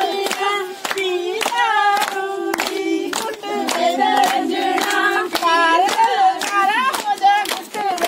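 A group of women singing a Punjabi folk song together, with handclaps keeping time about two to three times a second.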